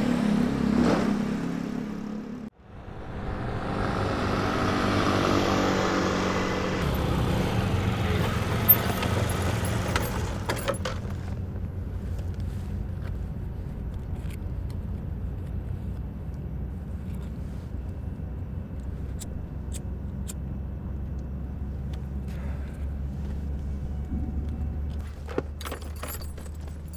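A motor vehicle engine on the road: after a sudden cut a little over two seconds in, it grows louder for several seconds, then settles to a steady low hum.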